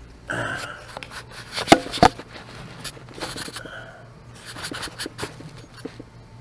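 Clear plastic tub being handled and set back into place on a counter: scraping and clicking, with two sharp knocks close together about two seconds in and a run of lighter clicks later.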